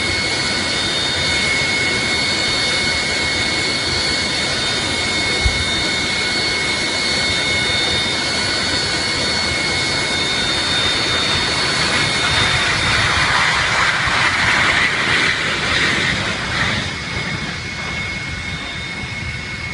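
Jet airliner engines running at high power: a steady rushing roar with a high whine running through it, growing louder around the middle and easing off near the end.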